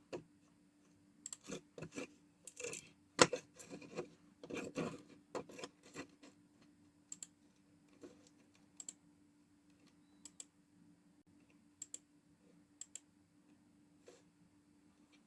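Typing on a computer keyboard, a busy run of key clicks in the first half, then scattered single clicks, over a faint steady hum.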